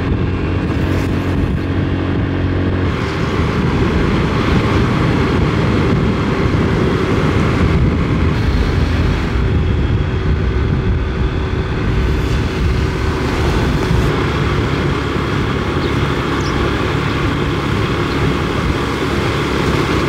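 Loud, steady motor-vehicle noise with no breaks.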